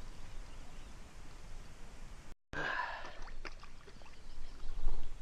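Faint outdoor background noise with soft handling sounds and a few light clicks. The sound drops out completely for a moment a little before halfway, and a short low thump comes near the end.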